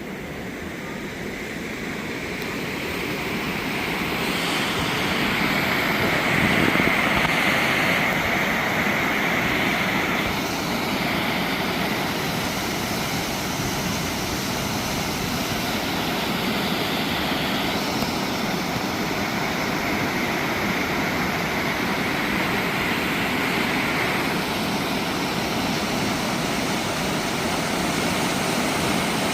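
Mountain stream rushing, a steady wash of water that grows louder over the first several seconds and then holds even.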